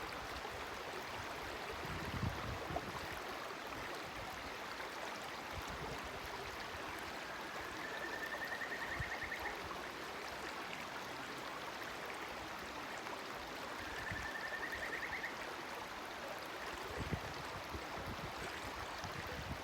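A clear river flowing steadily, with a bird giving two short, slightly rising trills, the second several seconds after the first. A few soft low thumps are also heard.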